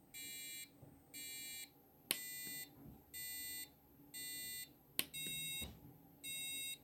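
Arduino-driven piezo buzzer beeping a steady tone in half-second beeps about once a second. Sharp push-button clicks about two and five seconds in switch it to a different tone.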